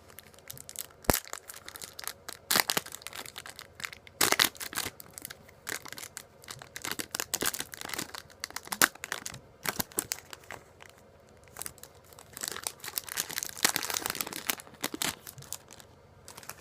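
Foil trading-card booster pack being torn open and crinkled by hand, with irregular crackling rustles and a sharp click about a second in.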